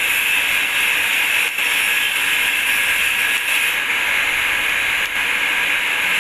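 TIG (argon) welding arc on stainless steel exhaust bellows, a steady hiss that dips briefly twice.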